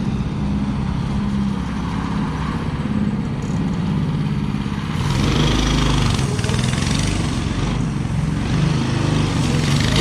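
A go-kart's small engine running as the kart is driven around, its pitch rising and falling with the throttle. It gets louder about halfway through as it is given more throttle.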